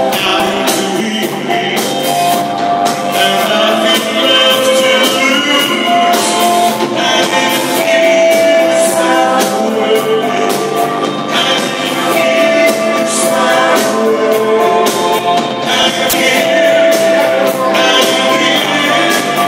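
Live rock band playing with a lead singer: sung melody lines over guitars, bass and drums, with cymbals, heard loud from the crowd in a pub.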